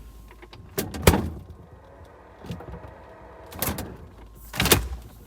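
Kenmore Elite refrigerator door thudding as it is shut, heard from inside the fridge where the phone is recording. Several knocks, the loudest about a second in and another near the end, with lighter handling knocks between.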